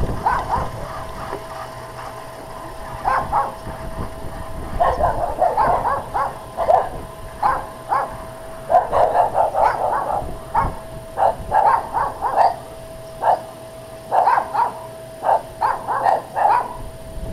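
A dog barking repeatedly in quick runs of barks, over a steady faint whine.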